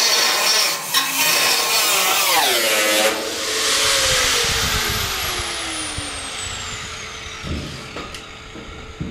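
Angle grinder cutting through the steel of a 55-gallon drum, then lifted off and switched off about two and a half seconds in, its whine falling slowly as the disc spins down. A few light knocks near the end.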